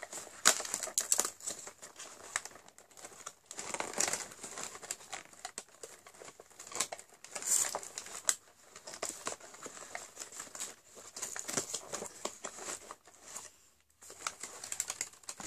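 Cardboard advent calendar being handled and a door opened: irregular crinkling, rustling and tearing of card and packaging.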